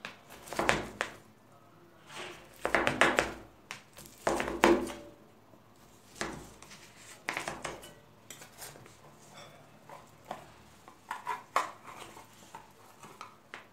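A metal knife and a wide metal scraper scraping and knocking against an aluminium baking tray while cutting and prising up a slab of dates packed with whole nuts. There are about six loud scrapes and clanks in the first eight seconds, then lighter clicks and knocks as a piece is lifted out.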